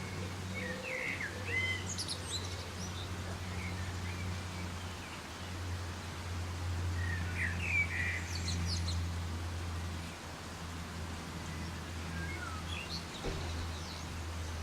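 Steady hiss of soft rain, with a low steady hum beneath it. Birds chirp in short flurries about a second in, again around seven to nine seconds, and near the end.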